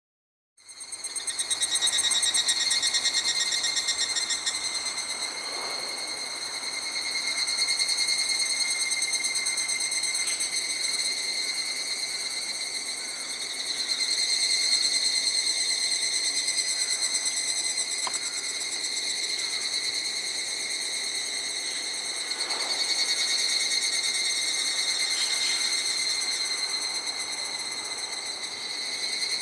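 Continuous high-pitched trilling chorus of calling insects, swelling and easing slightly in loudness.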